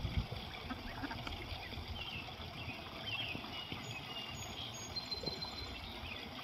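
Faint outdoor ambience: a low steady rumble with a few short, high chirps and one brief high whistle-like tone about five seconds in.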